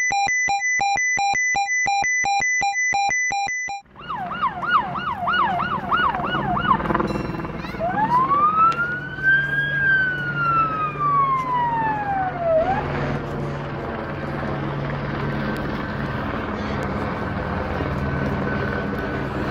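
A rapid beeping electronic intro jingle, then a police helicopter's siren: a fast yelp for about three seconds, then one long wail that rises and falls. The helicopter's rotor and engine drone steadily overhead after that.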